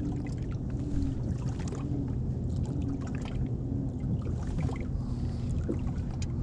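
Small water slaps and trickles against a small fishing boat's hull, scattered throughout, over a low steady hum.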